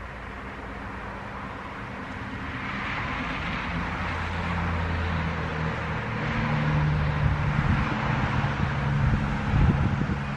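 Wind blowing through a birch tree's autumn leaves, a rustling that swells after a couple of seconds. A motor vehicle's engine hum passes by underneath in the second half, with a short low knock near the end.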